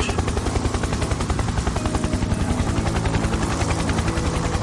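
Helicopter rotor beating in a rapid, even chop, the blades running steadily.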